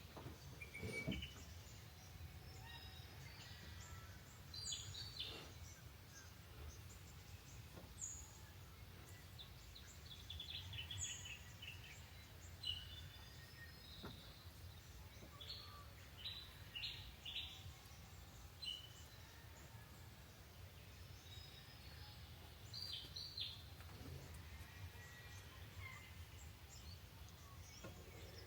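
Wild birds chirping faintly and intermittently, short high calls and little trills scattered through, over a low steady background rumble.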